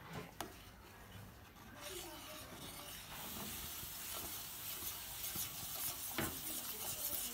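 Metal spoon stirring and scraping milk in a stainless steel pot on a gas stove, over a faint hiss that grows from about three seconds in. There is a sharp tap of the spoon on the pot about six seconds in.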